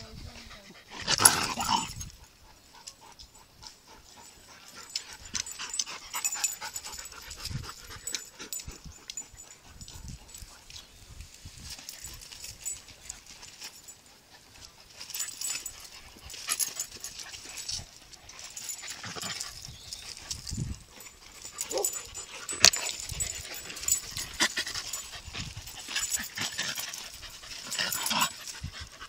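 A Shiba Inu and another dog play-fighting on gravel: scuffling and dog play noises in irregular bursts, with one loud burst about a second in.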